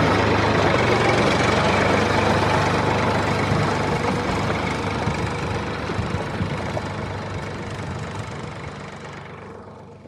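Steady engine running sound with a low hum, fading out gradually over the last few seconds.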